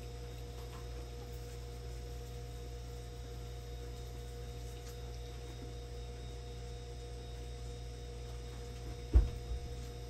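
A steady low hum with two faint steady tones above it, and a single sharp knock about nine seconds in.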